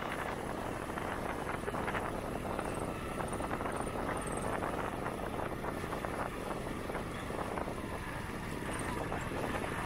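Honda Titan 125 motorcycle riding steadily along a dirt road: steady wind rush over the microphone with the engine running underneath.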